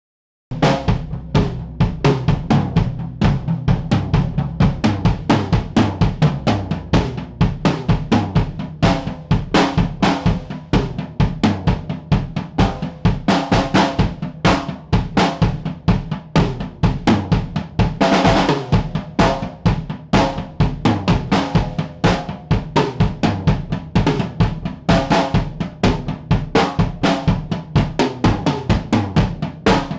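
Background music with a driving drum-kit beat of snare and bass drum, starting abruptly about half a second in.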